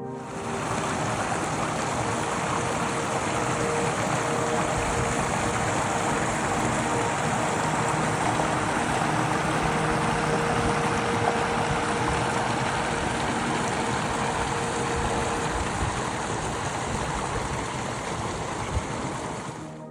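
A steady rushing noise, even and unbroken, with a faint steady hum underneath; it starts and cuts off abruptly.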